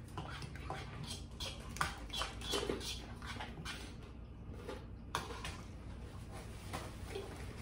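People eating at a table: chewing and lip-smacking, with forks and spoons clicking against bowls. The sound is a steady string of short, sharp clicks.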